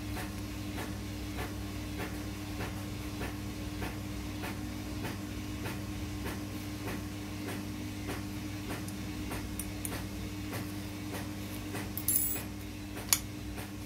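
Metal parts of a PCP air rifle Z-frame being handled and adjusted, giving a short rattle about twelve seconds in and a sharp metal click a second later. Under it run a steady low hum and faint regular ticking, about two or three a second.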